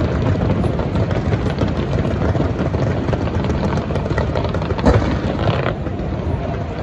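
Fireworks display going off: a dense, continuous crackling and booming from many shells at once, with one sharper bang about five seconds in.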